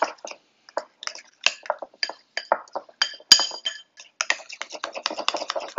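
A spoon stirring thick mayonnaise-based sauce in a glass bowl: quick, irregular scrapes and clinks against the glass, with one sharper clink about three seconds in.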